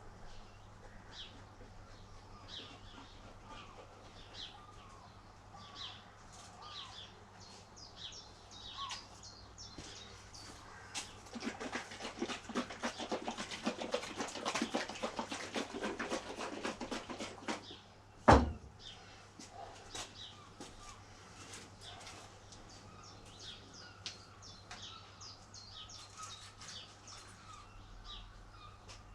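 Small birds chirping again and again. In the middle comes a burst of rapid clicking lasting several seconds, followed by a single sharp knock, the loudest sound.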